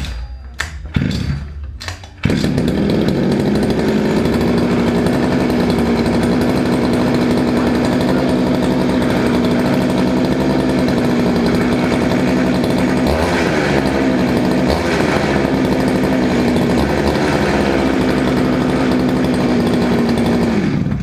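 Freshly rebuilt Go-Ped GP460 46cc two-stroke engine pull-started: one or two short pulls, then it catches about two seconds in and runs steadily. Its speed wavers briefly around the middle, and it winds down and stops near the end.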